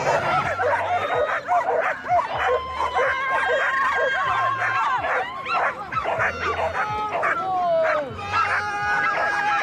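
Excited flyball dogs barking, yelping and howling with no pause, several calls overlapping.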